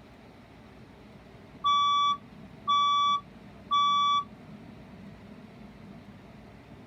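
Voice-evacuation fire alarm sounding three half-second beeps about a second apart: the temporal-three evacuation tone that alternates with its recorded "leave the building" message.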